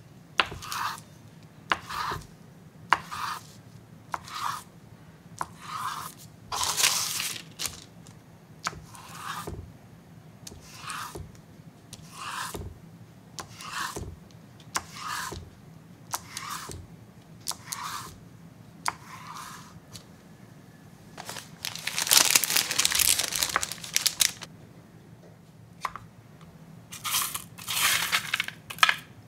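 Knife blade pressing down through a sheet of firm kanten (agar) jelly onto paper: a short crisp cut about once a second, repeated many times. About three quarters through there is a longer rustling stretch, and near the end the cut jelly cubes are tossed by hand on a paper towel.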